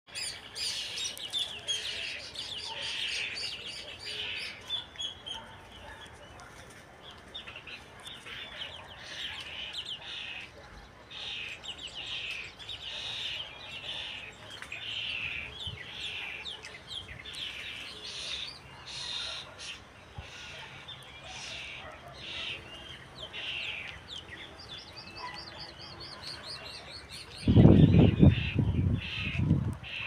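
Small birds chirping and tweeting in many quick, short calls. Near the end a sudden loud, low noise lasts about two seconds.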